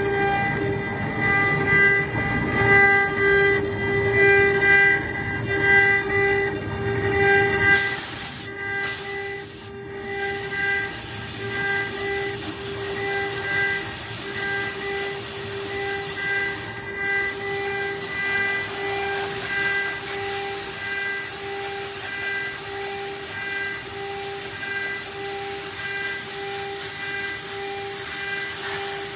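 Water-cooled spindle of a CNC wood router running with a steady high whine and a hiss. For the first eight seconds it is louder and uneven, with a pulsing low rumble, then it settles to an even whine.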